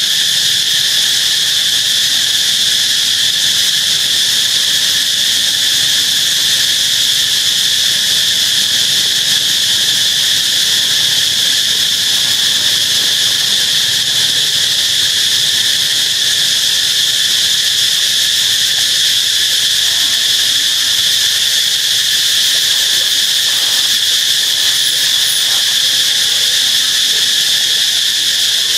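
Loud, steady high-pitched drone of insects, unbroken and unchanging throughout.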